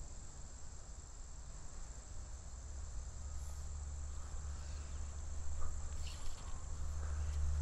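Steady high-pitched insect drone from summer streamside woods, over a constant low rumble, with a few faint ticks about two thirds of the way in.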